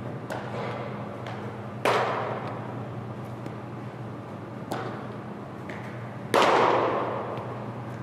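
Two loud, sharp baseball impacts about four and a half seconds apart, each echoing through a large indoor hall, with a fainter knock between them. A steady low hum runs underneath.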